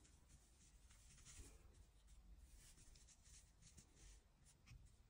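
Near silence, with faint, irregular rustling of hands handling a chunky-knit jumper.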